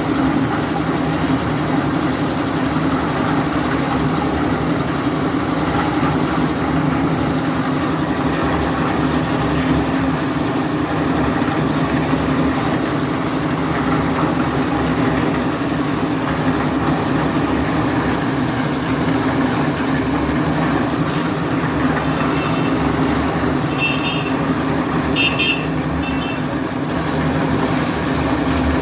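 A heavy vehicle engine runs steadily, giving an unbroken low drone. Near the end there are a few short high beeps.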